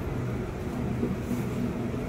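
Steady low hum of an underground railway station, with a faint low tone held throughout.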